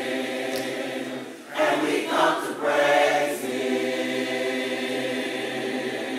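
Church choir singing in harmony: a long held chord, a louder moving passage from about one and a half to three and a half seconds in, then another long held chord.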